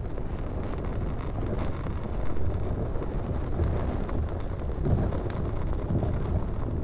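Large fire burning: a steady low rumble of flames with scattered crackles throughout.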